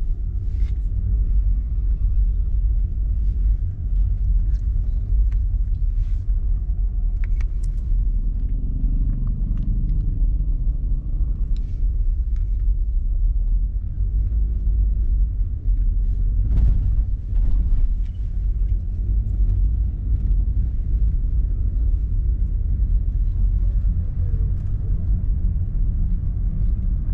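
Road noise and engine rumble heard from inside a moving car, a steady low drone with a few light knocks and rattles.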